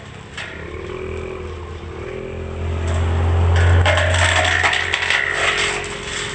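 Brush cutter engine running steadily, getting louder about three and a half seconds in, with a scraping noise over it.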